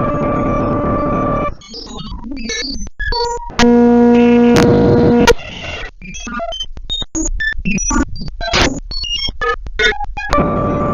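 Shortwave radio receiver tuned to 27593.4 kHz giving steady static hiss with a whistling tone. About a second and a half in, the hiss breaks up into choppy crackles and short beeps, including a loud buzzing tone of under two seconds about four seconds in. The steady hiss and whistle return near the end.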